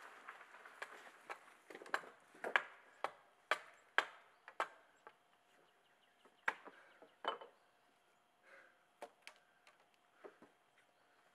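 Thin dry wooden poles knocking and clacking against one another as they are dropped and laid onto a floor of poles, a dozen or so sharp separate knocks, most of them in the first half. A rustle of handling at the start.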